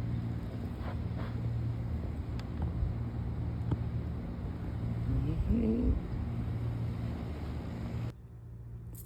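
A steady low engine hum with a haze of wind-like noise, broken by a short wavering call about five and a half seconds in; the hum drops away sharply near the end.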